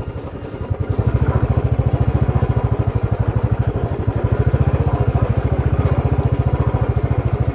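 Royal Enfield Bullet's single-cylinder engine running at low speed with a quick, even pulse, a little quieter for the first second and then steady.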